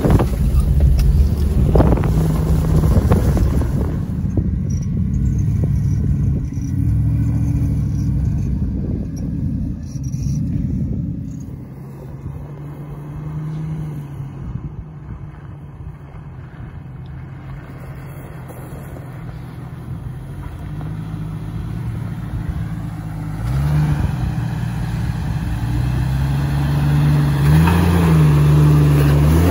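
Off-road Jeeps' engines running as they crawl a rocky desert trail. In the last few seconds a lifted Jeep Cherokee XJ's engine revs up and down in short pulls as it climbs over rock.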